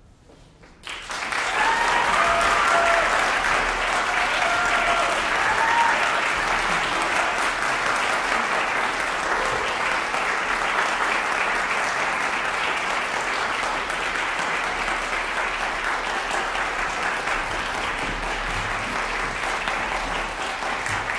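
Concert-hall audience applauding, the clapping starting suddenly about a second in and then running on steadily. A few voices call out over the clapping in the first few seconds.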